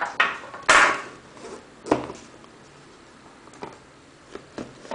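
Cardboard laptop box and its packaging being handled by hand: a half-second scraping rustle about a second in, a sharp knock near two seconds, then lighter taps and clicks.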